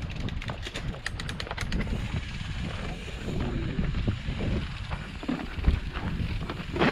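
Mountain bike descending a dirt singletrack: tyres rumbling over dirt and roots, with the bike rattling and knocking and wind on the microphone. A run of rapid clicking comes in the first two seconds.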